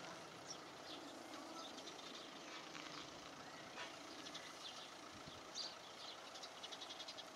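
Faint outdoor ambience: birds chirping in short, high calls scattered throughout, over a steady low hum of a distant engine.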